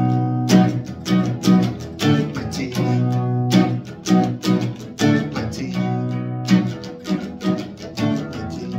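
Acoustic guitar strummed in a steady rhythm, a chord about every half second, the low notes ringing on between strums.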